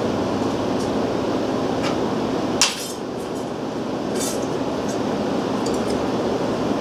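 Steel banding strap clinking against the rolls of a hand-cranked slip roller as it is cranked through and curled, with light metallic clicks and one sharp clank about two and a half seconds in, over steady background noise.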